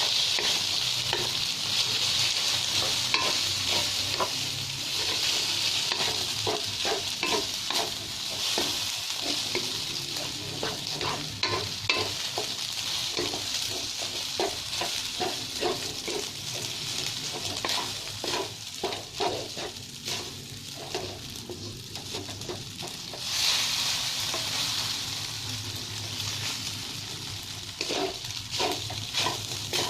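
Rice and egg frying in hot oil in a pan, sizzling steadily while a utensil stirs and scrapes through it in many short strokes. The sizzle swells briefly about two-thirds of the way in.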